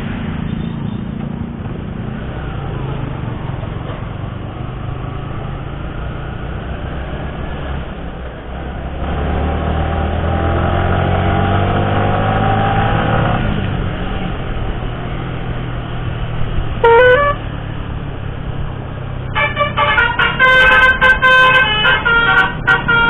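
A vehicle engine running, rising and then falling in pitch between about nine and fourteen seconds. A short horn toot comes about seventeen seconds in. From about twenty seconds on, a Basuri telolet multi-tone musical horn plays a quick run of changing notes, loudly.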